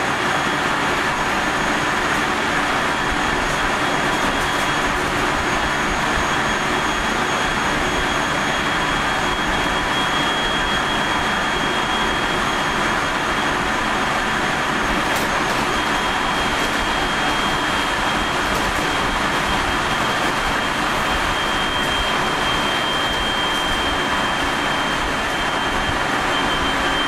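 Running sound inside the motor car of a JR 373 series electric train, KuMoHa 373-11, cruising steadily: a continuous rumble of wheels on rail with a thin, high whine held over it. This car is known for an unusually strong abnormal running noise.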